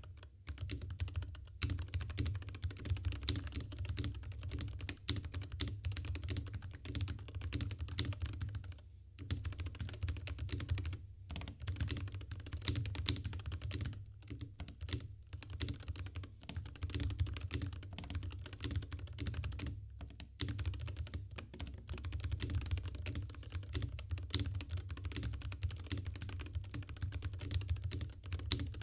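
Typing on an Epomaker HE75 Mag keyboard with its stock magnetic Hall-effect switches and stock stabilizers: a fast, continuous run of key clicks with a few brief pauses.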